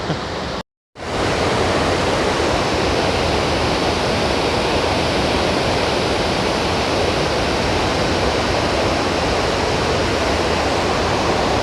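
Waterfall rushing: a steady, even roar of falling water. It cuts out briefly just under a second in, then comes back a little louder and holds steady.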